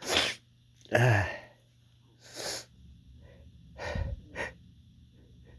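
A man's sharp breaths and gasps as a sneeze builds: a hissing breath at the start, a louder voiced gasp about a second in, then softer breaths near the middle and twice more around four seconds in.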